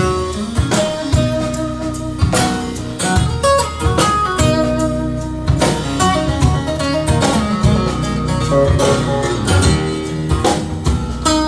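A song playing over a pair of Wilson Audio Sabrina loudspeakers: a stretch with guitar over a steady drum beat and no singing.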